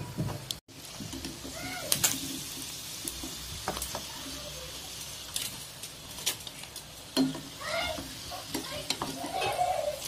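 Battered squid pieces deep-frying in hot oil in a steel pan: a steady sizzle. Scattered sharp clicks come from metal tongs and a slotted spoon knocking against the pan and a steel colander as pieces are lifted out.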